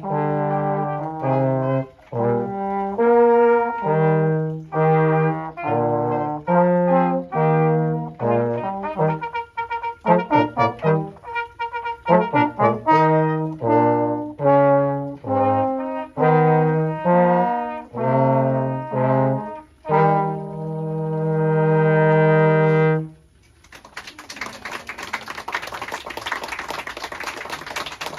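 Brass trio with a French horn playing a piece of mostly short, separated notes. It ends on a long held chord that cuts off about 23 seconds in, and applause follows.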